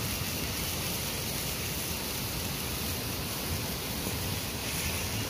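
Steady sizzling of sauce and boiled eggs simmering in a wide pan over a wood fire.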